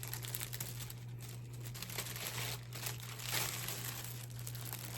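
Packaging crinkling and tearing as a parcel is opened by hand, with irregular rustles and crackles throughout.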